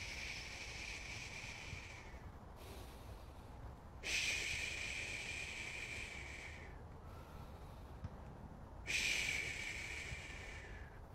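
A man's long hushing 'shhh' exhalations through the mouth, three in all with quieter in-breaths between: the liver sound (xu) of the qigong six healing sounds.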